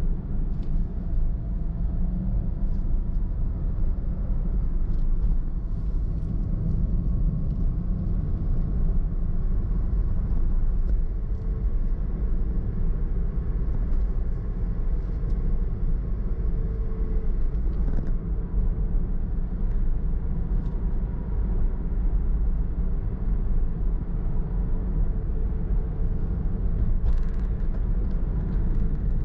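Car driving along a road: a steady, low rumble of road and engine noise that holds even throughout, with a faint steady hum above it.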